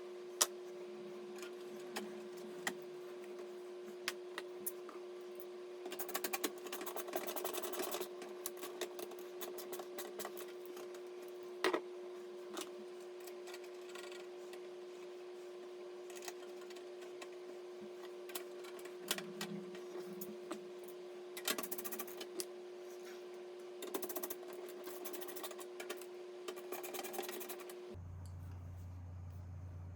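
Bursts of typing on a computer keyboard and single clicks over a steady hum, which changes to a lower hum near the end.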